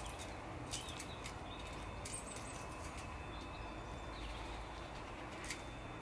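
Steady outdoor background noise with a low rumble, a few faint, brief high chirps from small garden birds, and a few sharp clicks, the loudest just under a second in.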